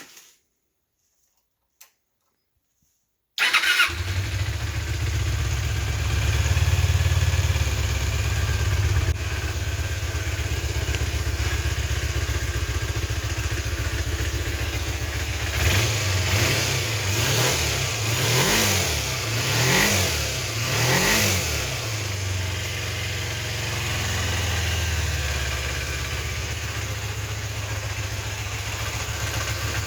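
1998 Kawasaki Ninja 250's parallel-twin engine starting about three seconds in and settling to a steady idle after a carburettor rebuild. Several short throttle blips come in the middle, each rising and falling, before it goes back to idling.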